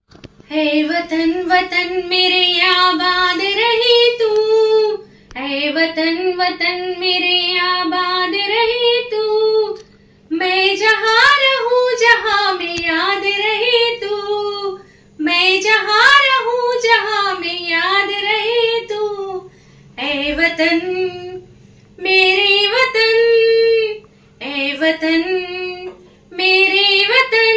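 A woman singing solo without accompaniment, in about seven held, wavering phrases of a few seconds each, with short breaks for breath between them.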